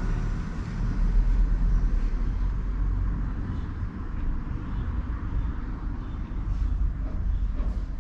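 Outdoor background noise: a steady low rumble with a faint hiss above it and no distinct event.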